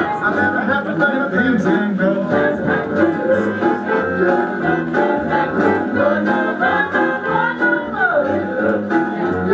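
A man singing into a microphone while playing an electronic keyboard.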